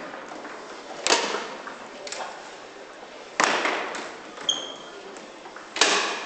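Ball and rod men striking hard on an Ullrich tournament foosball table: three sharp knocks, about a second in, about three and a half seconds in, and near the end, each ringing briefly.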